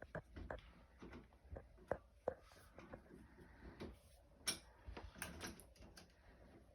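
Faint, irregular clicks and small knocks of door-lock hardware being handled while its screws are worked out.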